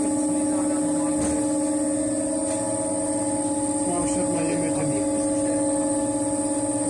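Electric potter's wheel motor running with a steady hum while it spins a clay pot. Two brief knocks sound about a second in and about four seconds in.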